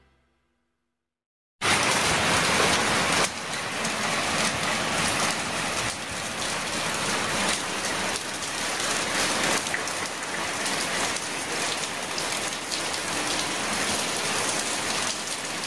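Steady noise like heavy rain, cutting in suddenly after about a second and a half of silence and loudest for its first couple of seconds.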